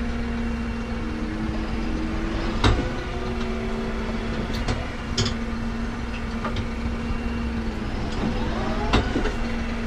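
Massey Ferguson 4710 tractor's diesel engine running steadily as the tractor is moved off using the clutch and shuttle. A few sharp knocks sound during it, the loudest about a third of the way in.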